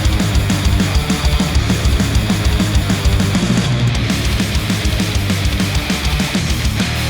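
A loud rock track with a steady, fast drum beat, played back through Sennheiser headphones and picked up by microphones at the earcups.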